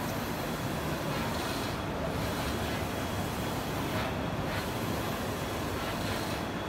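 Large-format roll-to-roll printer running: a steady machine hiss and hum, its high hiss dipping briefly about every two seconds.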